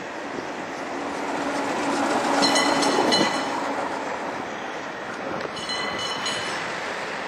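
Vintage SNCV vicinal tram car AR 193 passing close by on its rails, a steady running rumble that swells to its loudest about three seconds in and then fades. Two short high-pitched squeals sound over it, about two and a half seconds in and again near six seconds.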